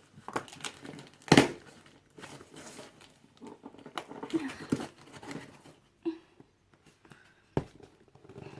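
Cardboard box and packaging being opened by hand: tearing and crinkling rustles, with a sharp loud crack about a second and a half in and another near the end.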